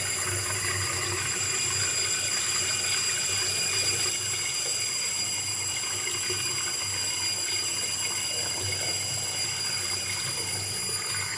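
Toilet cistern float valve (ballcock) letting water run, a steady hiss of water with a shrill, high-pitched squeal held over it. The squeal and the endless flow are the signs of a faulty fill valve that will not shut off.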